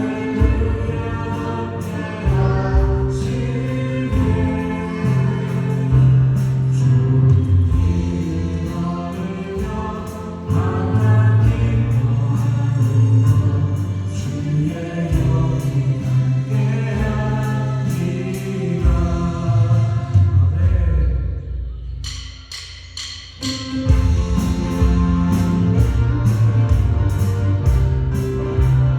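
Worship band playing a Korean praise song: several voices singing together over keyboards, drums and acoustic guitar. About three quarters of the way through the music thins out briefly, then comes back in with regular drum and cymbal strokes.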